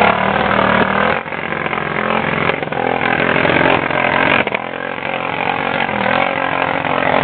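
Arctic Cat 650 ATV engine running hard under load in mud and ice. It eases off briefly about a second in and again past the middle, then builds back up.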